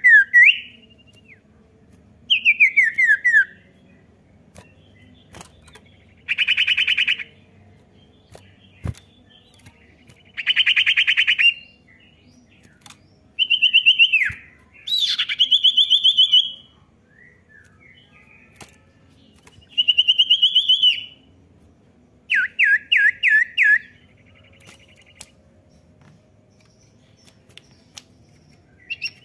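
Common iora (cipoh) song: clear whistles gliding down in pitch, buzzy trilled phrases, and a quick run of about five downslurred notes near the end, with pauses of a second or two between phrases.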